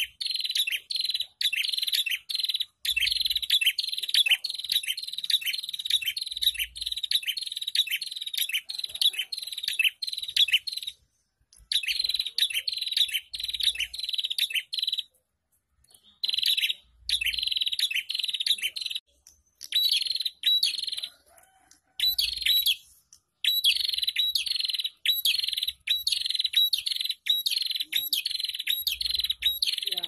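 Prenjak songbird calling: long runs of loud, sharp, rapidly repeated chirps, about three a second, broken by short pauses.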